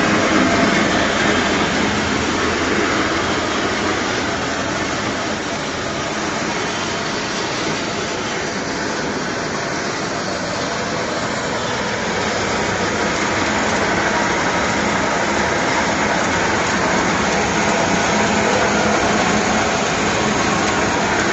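Peanut peeling machine running, a steady mechanical whir from its motor and blower.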